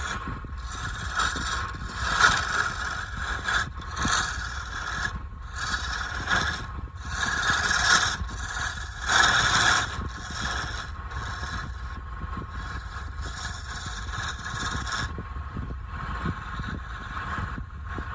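Wood lathe running steadily while a turning tool scrapes the spinning palm-wood blank in irregular passes. The scraping stops about 15 seconds in, leaving only the lathe running.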